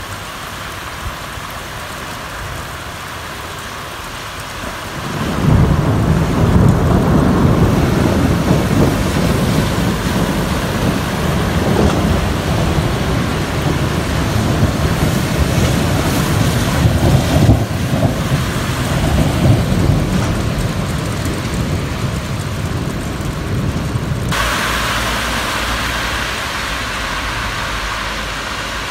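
Steady rain, then about five seconds in a long, loud roll of thunder that starts suddenly and rumbles on, swelling and easing, for nearly twenty seconds. Near the end the rumble fades and the rain hiss comes through brighter.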